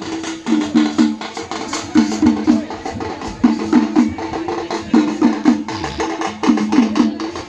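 Percussion music: a repeating figure of three pitched drum strokes about every second and a half, over quick, dense clicking beats.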